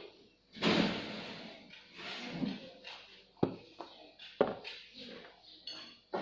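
Hands handling pastry twists on a parchment-lined baking tray: irregular rustling of the baking paper, with two sharp light knocks about three and a half and four and a half seconds in.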